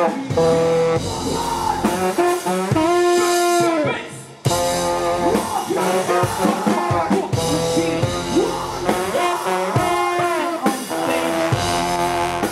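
Live band music with brass horns and a drum kit, a voice singing at times. About four seconds in the music fades briefly, then starts again abruptly on a new passage.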